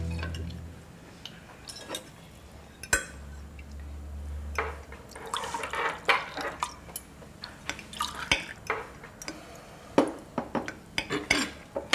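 Cutlery clinking and scraping on dinner plates and glasses, with orange juice poured from a glass jug into a glass around the middle. Background music fades out in the first second.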